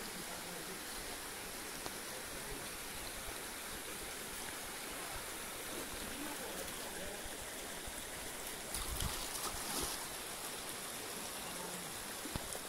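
River water flowing over a shallow stony bed, a steady rushing hiss. A louder burst of noise comes about nine seconds in.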